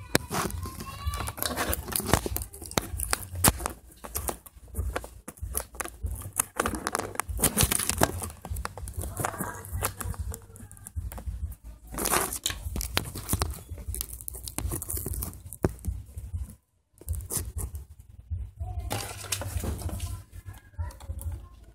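Stiff clear plastic clamshell packaging being bent and prised open by hand, crinkling and crackling with many irregular sharp clicks; the packaging is very hard to open.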